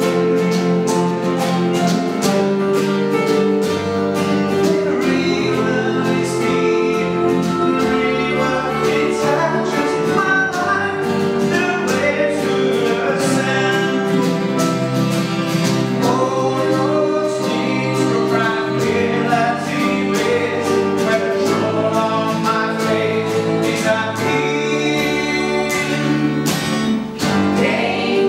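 Live vocal group singing in harmony, led by two women's voices, over a strummed acoustic guitar; the music runs without a break.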